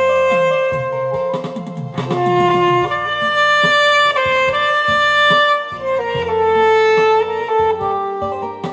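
Alto saxophone playing a slow melody of long held notes over an accompaniment.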